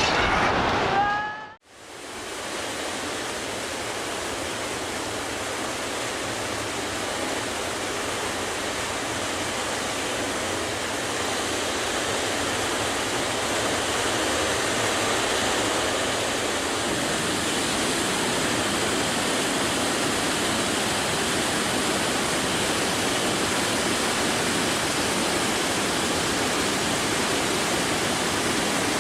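Floodwater rushing in a steady, unbroken torrent, starting after a short cut to silence about two seconds in.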